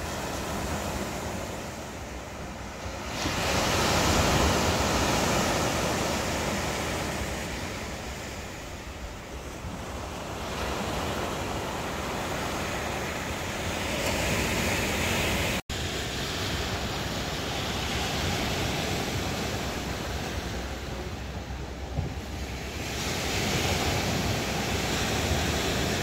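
Sea waves breaking on a pebble beach: the surf swells and eases in long surges every several seconds. The sound cuts out for an instant about two-thirds of the way through.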